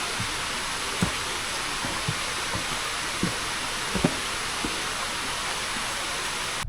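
Footsteps on a mountain trail, soft low thuds every half second to a second, under a steady rushing hiss. The hiss cuts off abruptly at the end.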